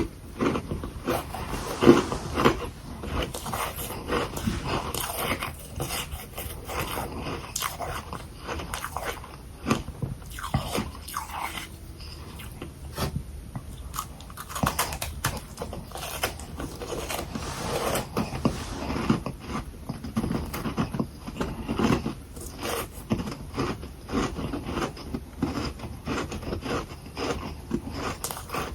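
Close-miked biting and chewing of humidifier freezer frost: frequent crunches and crackles of powdery frozen frost being bitten and chewed.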